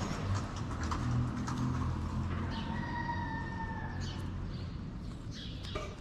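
A cat gives one drawn-out meow a little past halfway, held at a nearly level pitch for over a second, over a low rumble. A few light taps follow near the end.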